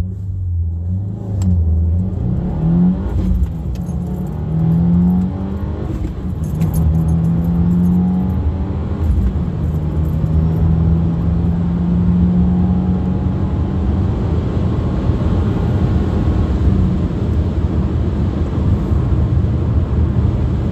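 Cobb 93-octane off-the-shelf tuned 2022 Subaru WRX's turbocharged 2.4-litre flat-four at full throttle from a standing start, heard inside the cabin: the revs climb and drop through several quick upshifts of the six-speed manual over roughly the first 14 seconds. After that the engine note gives way to steady wind and road noise at around 100 mph.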